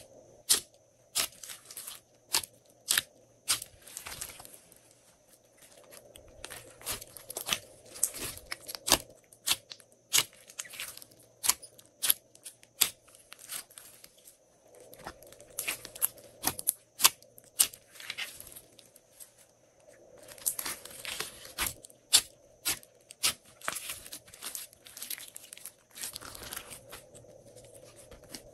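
Glossy slime being stretched, poked and folded by hand: rapid irregular sharp pops and crackles, with a wet tearing sound, coming in clusters with short lulls between.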